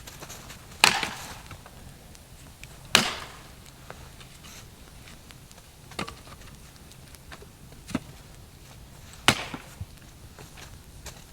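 Wood being chopped: sharp single strikes at irregular intervals, three loud ones about one, three and nine seconds in, with two fainter knocks between.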